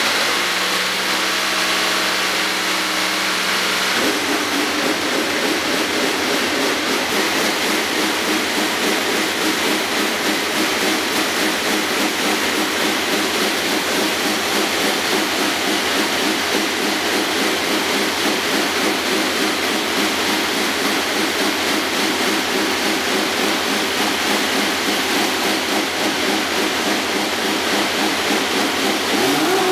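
Renault 1.6-litre turbocharged V6 Formula One engine running on its first fire-up, a loud, steady, pulsing idle. The note changes about four seconds in and begins to rise at the very end.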